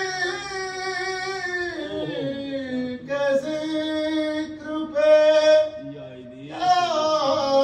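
A man singing Urdu devotional verses in praise of Ali in long, drawn-out melodic phrases, holding wavering notes, with short breaths about two and six seconds in.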